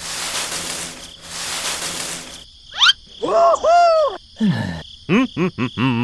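Cartoon sound effects: a hissing noise for about two and a half seconds, then a quick rising whistle, then a run of short squeaky cartoon-character noises whose pitch bounces up and down.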